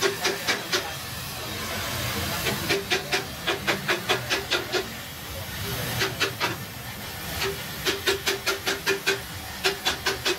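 Gas welding torch hissing steadily as its flame welds a steel exhaust pipe seam. Several runs of quick sharp ticks, about five a second, come and go over the hiss and are the loudest sound.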